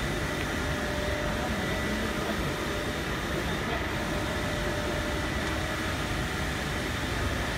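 Thin plastic sheet extrusion line running: a steady machine hum and noise with a few faint constant whining tones, unchanging throughout.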